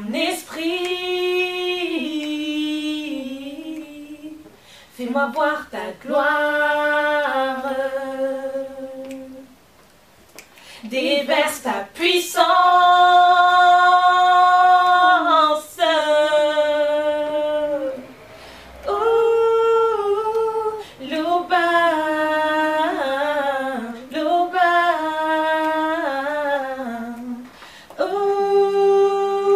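Two women singing a worship song a cappella, in long sustained phrases with short breaks for breath between them.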